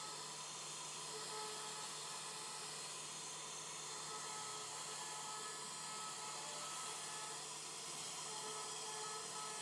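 CNC router spindle running and carving wood: a steady high hiss with a low hum and thin whining tones that fade in and out.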